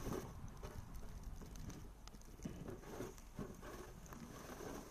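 Faint, muffled scrapes and soft taps of plastic snow shovels pushing and lifting snow, coming irregularly.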